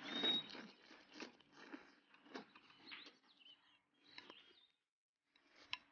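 A person slurping instant noodles and a leafy green from a bowl, with wet sucking, smacking and chewing sounds. The loudest slurp comes right at the start with a brief high squeak, followed by a string of shorter slurps and mouth clicks.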